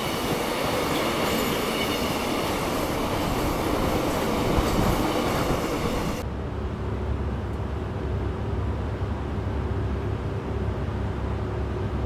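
A freight train of tank wagons passes close by a station platform: a loud, even rush of wheels and rattling cars. About six seconds in, it gives way to the steady low rumble of a bus heard from inside the cabin on a highway.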